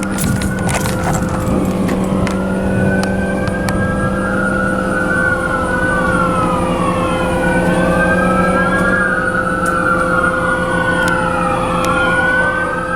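Wailing emergency-vehicle sirens, more than one at once, their pitch rising and falling slowly and overlapping. A steady low hum sits underneath.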